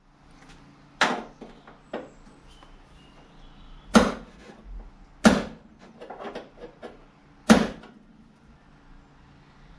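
Sharp knocks and clicks of hands and a tool working at the badges on a car's metal boot lid, trying to get them off. Four louder knocks, spaced unevenly, with smaller taps and clicks between.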